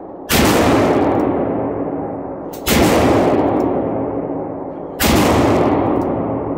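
Three heavy handgun shots from a Taurus Raging Hunter .357 Magnum revolver, about two and a half seconds apart. Each shot rings out in a long echoing decay that is still fading when the next one comes.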